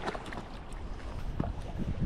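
Wind buffeting the microphone over lapping lake water, with a few short splashes as a hooked panfish thrashes at the surface beside the boat.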